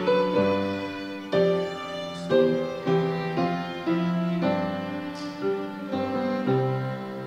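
Violin and piano playing a piece together: sustained bowed violin notes over struck piano notes.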